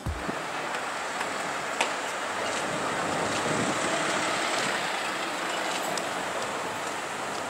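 Steady city street traffic noise: a wash of engines and tyres with no single engine standing out, and a few faint ticks.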